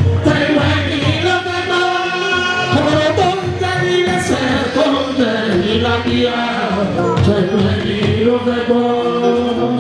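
Live fuji music: a man singing lead into a microphone over a band's drums and percussion.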